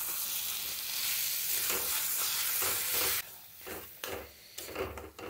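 Baby potatoes in masala sizzling in hot oil in a metal kadai, a steady hiss that cuts off suddenly about three seconds in. A steel spatula stirs and scrapes the pan, with several short scrapes near the end.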